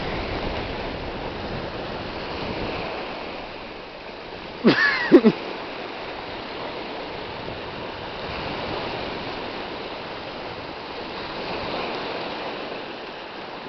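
Small waves washing over a pebble shore, a steady rush of water. About five seconds in, a person gives a short shout.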